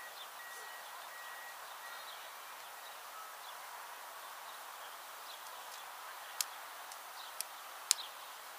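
Steady outdoor hiss across an open field, with a faint high chirp repeating in short dashes during the first two seconds. Three sharp taps come about six and a half, seven and a half and eight seconds in.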